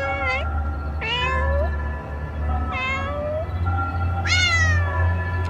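A cat meowing repeatedly, about four meows roughly a second and a half apart, the last one the loudest and falling in pitch, over steady background music.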